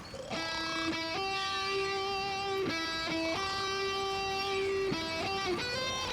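Background music cue: a string of long, held pitched notes that step to a new pitch every second or so.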